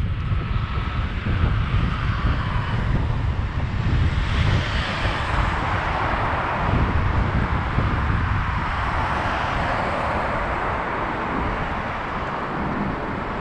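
Wind buffeting the microphone of a moving bicycle. Under it is a rushing road noise that swells twice, about four seconds in and again around nine seconds.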